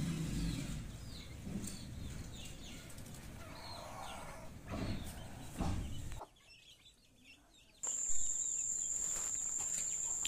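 Month-old desi chicks peeping and clucking as they peck at the ground. About six seconds in the sound drops out briefly, then a steady high-pitched tone sets in.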